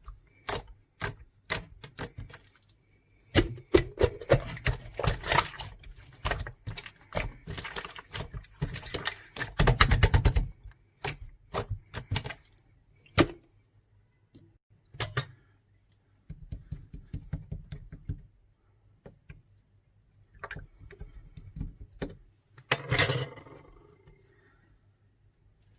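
Handling noise: rapid, irregular clicks and crackles of something crinkly being worked by hand, in uneven bursts with short quiet pauses and a louder crinkly burst near the end.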